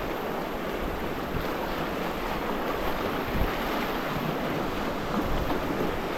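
River water rushing steadily around a raft in the current, a continuous wash of moving water.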